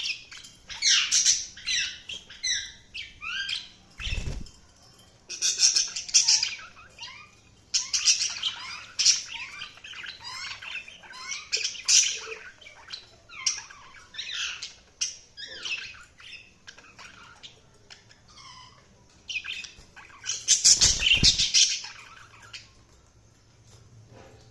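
Budgerigars chattering: bursts of rapid, high chirps and warbling squawks, several birds at once, with quieter gaps between the bursts. Two brief low thuds, about four seconds in and again near the end, sound among the chatter.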